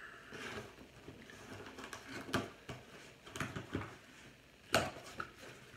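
A cardboard package being opened by hand: scattered rustling and small scraping clicks, with a sharp click about two and a half seconds in and a louder one near the end.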